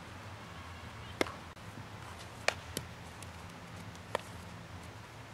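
Four sharp knocks of a softball against bat and leather glove during an infield ground-ball drill: one, then two close together, then a last one near the end as the ball is fielded into the glove.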